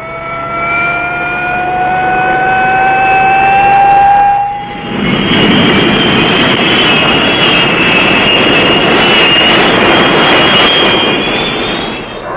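Jet aircraft engine with a whine that rises slowly in pitch for the first four seconds or so. About five seconds in it gives way to a loud, steady rush of jet noise with a high whine over it.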